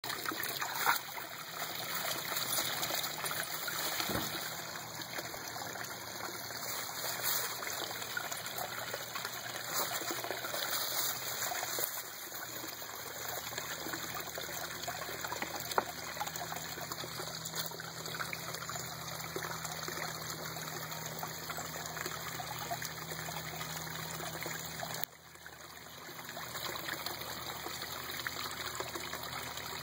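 Steady trickling of water in a small garden pond, with a couple of brief clicks.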